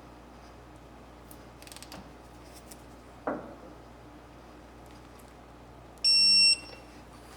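Snap-on TechAngle electronic torque wrench giving a single half-second high beep as the flywheel bolt reaches its 120-degree target angle during torque-to-yield tightening. Before it come a few light clicks and a dull knock.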